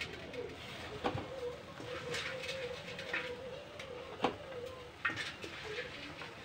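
Chopped bathua leaves being pressed by hand into a steel pot of hot water: soft rustling with two light knocks against the pot, one about a second in and one past four seconds, over a faint steady hum.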